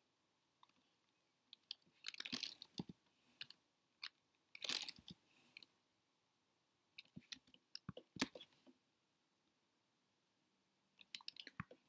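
Faint, scattered clicks and short clattery bursts of a computer mouse and keyboard in use, in clusters around two, five and eight seconds in.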